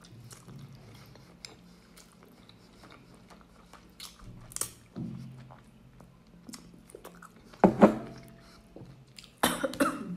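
Slurping and chewing a mouthful of transparent Korean instant noodles, with soft wet mouth clicks, then loud coughing bursts near the end from choking on the noodles.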